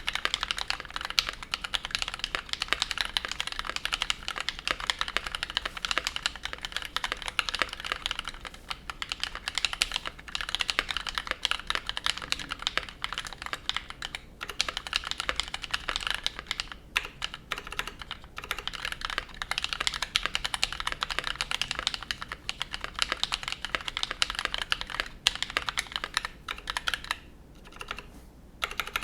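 Fast, continuous typing on a custom mechanical keyboard: a KBD67 MKII with lubed NovelKeys Cream linear switches on a brass plate, giving a dense run of keystroke clacks. The typing pauses briefly near the end, then resumes.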